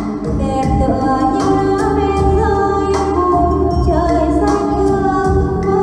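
A woman singing karaoke into a handheld microphone over a backing track with a steady beat, both played through a newly installed home karaoke system: a KM315 mixer, a KD 500 power amplifier and a pair of loudspeakers.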